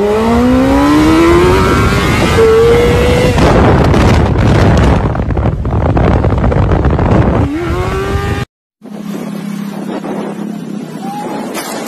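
Sport motorcycle engine revving hard as the bike accelerates, its pitch climbing, under loud rushing wind and road noise. After a sudden cut, a small motorcycle engine runs at a steady lower note, with wind on the microphone.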